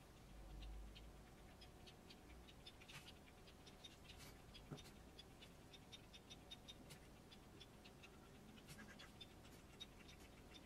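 Near silence: faint, evenly spaced ticking runs throughout, with light scraping of a sculpting tool on soft clay near the end.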